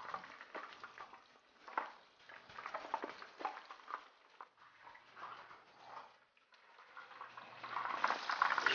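Battered shrimp deep-frying in oil: faint bubbling with irregular crackles and pops as water from the batter and shrimp escapes into the hot oil, a sign that the shrimp are still wet and not yet crisp. The frying grows louder near the end.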